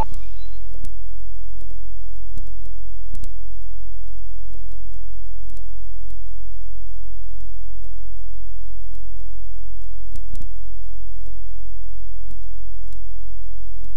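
Loud, steady low electrical hum with faint, irregular clicks scattered through it.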